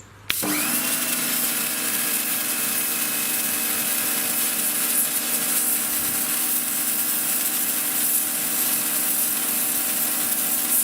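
Sunpow BCN-H electric pressure washer kicking in as the trigger is pulled: its motor and pump hum dips in pitch and settles within half a second, then runs steadily under a loud hiss of high-pressure water spraying from the red nozzle. It stops suddenly at the end.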